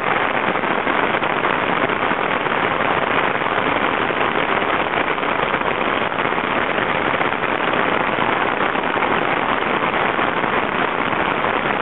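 Torrential cloudburst rain pouring onto a flooded, paved street: a steady, dense hiss.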